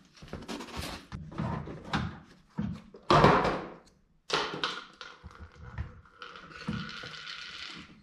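Knocks, rustling and scraping of hands working at a car's trunk, with a loud thump about three seconds in and a stretch of steady scraping near the end.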